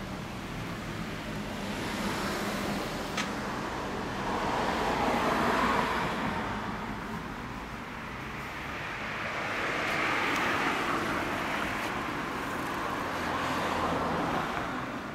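Honda NSR250R's two-stroke V-twin idling steadily through a Dog Fight Racing exhaust, with road traffic swelling past a few times, most strongly about a third of the way in and again about two-thirds in.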